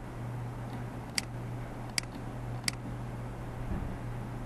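Computer mouse clicking three times, sharp short clicks a little under a second apart, over a steady low hum.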